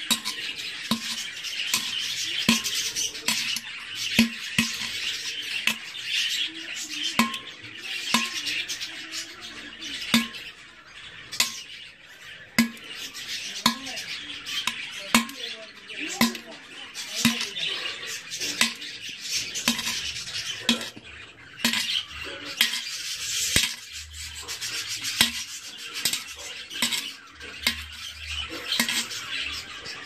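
A pointed metal tool scraping and chipping at the edge of a hole in an unglazed terracotta clay pot, widening the entrance hole of a budgie breeding pot. The strokes are sharp and come roughly once a second, metal grating on fired clay.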